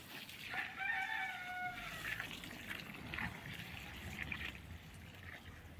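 A rooster crowing once, a little over a second long, starting about half a second in.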